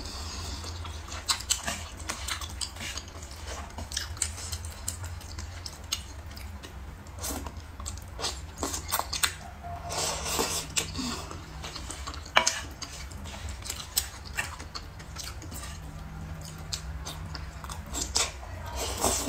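Close-miked eating sounds: chewing and wet mouth noises, with scattered sharp clicks of utensils against a dish, over a low steady hum.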